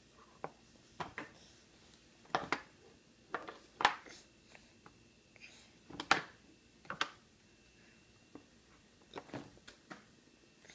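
A toddler's fork knocking and clacking on a plastic high-chair tray: a dozen or so irregular taps, the loudest about four and six seconds in.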